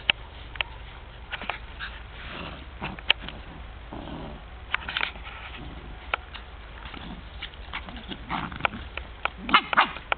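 Two young dogs play-fighting, with short low growls and grunts and sniffing, among scattered sharp clicks and taps that are loudest near the end.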